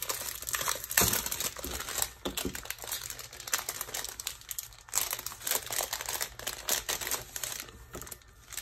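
Packaging crinkling and rustling as a package of craft papers is opened and handled by hand, in irregular crackles with a few louder snaps.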